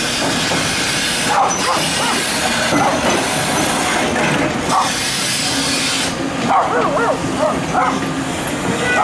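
Excavator working: a steady dense machine noise, with wavering high metallic squeals coming and going about a second and a half in, around four and a half seconds, and again between six and a half and seven and a half seconds.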